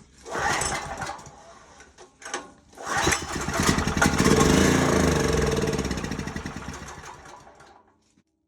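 Small portable generator engine cranked with starter fluid in the carburetor: it catches about three seconds in, runs briefly, then slows and dies out. Running only on starter fluid and then stalling, which the owner traces to a carburetor fault with no gas reaching the bowl.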